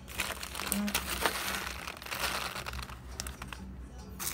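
Thin plastic bag of dry white rice crinkling and rustling with fine clicks as a spoon scoops rice out of it, over a steady low hum.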